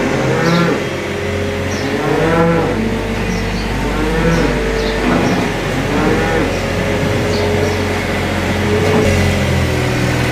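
Cattle mooing again and again, about every two seconds, over the steady running of a Kramer Allrad 1245 mini telehandler's engine.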